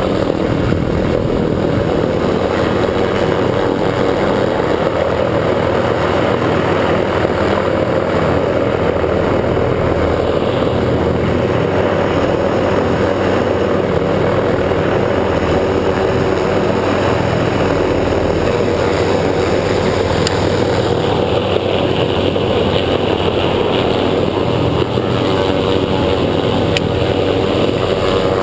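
Light helicopter flying close overhead, its rotor and engine running steadily.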